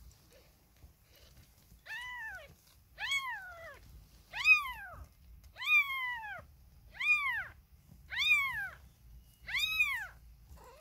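Four-day-old British Shorthair kitten mewing over and over: seven high cries, each rising then falling in pitch, about one every second and a quarter, starting about two seconds in. The owner thinks the kitten is crying because it is trying to find something to drink.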